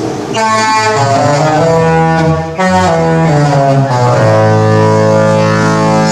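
Disney Fantasy cruise ship's musical horn playing a Disney tune: loud chorded horn notes that step from note to note, break off briefly about two and a half seconds in, then settle into one long held chord from about four seconds on.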